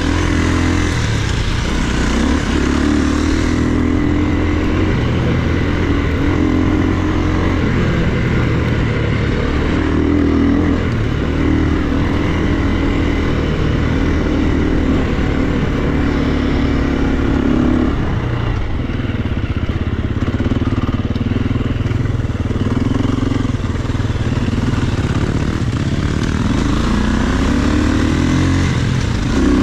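KTM enduro dirt bike's engine heard up close from on the bike while riding a trail, its pitch repeatedly rising and falling as the throttle opens and closes. It eases off about two-thirds through and revs up again near the end.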